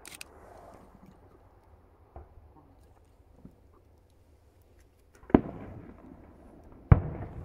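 Two aerial firework shells bursting about a second and a half apart, each a sharp bang with a rumbling tail that dies away, heard from about a kilometre off. A few faint pops come before them.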